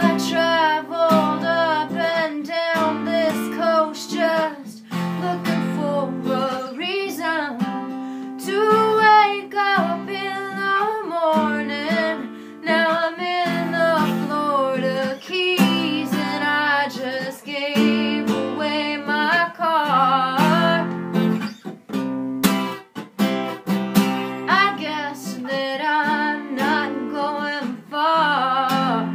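Music: a woman singing a slow melody over her own acoustic guitar.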